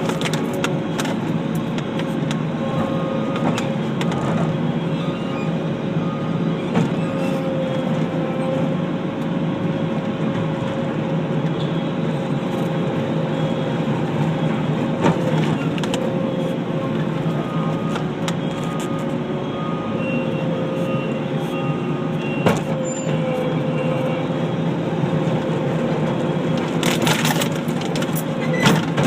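Skid steer loader engine running steadily, with scattered knocks and clatters over it.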